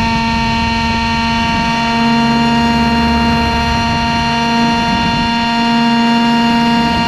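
Model tandem-rotor helicopter's motors and rotors running steadily in flight, a sustained whine of several even tones over a low rotor hum, swelling slightly a couple of times, heard through a camera mounted on the aircraft.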